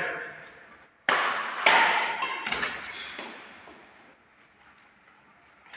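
Badminton racket hitting the shuttlecock: two sharp hits about half a second apart, a second in, each followed by a slowly fading echo.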